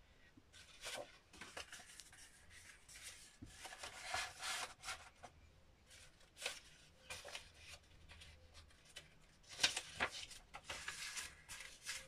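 Paper rustling and scraping in short, irregular bursts as sheets and offcuts are handled, slid and tucked into a folded-paper book, with a louder rustle about ten seconds in.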